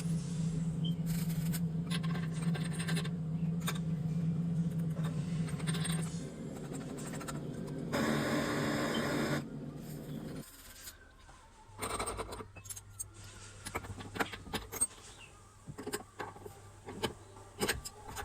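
Light metallic clinks, taps and scrapes of plumbing tools and copper pipe fittings being handled. A steady low hum stops about six seconds in, and a short burst of rushing noise comes about eight seconds in.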